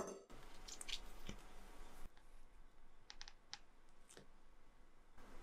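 Faint scattered clicks and light crackles from a crisp craquelin-topped cream puff being handled and pulled apart on a plate.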